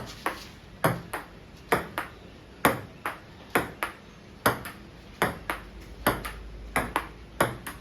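Table tennis rally: the ball ticking sharply off the table and the paddles in a steady back-and-forth. The ticks come in close pairs, bounce then hit, about one pair a second.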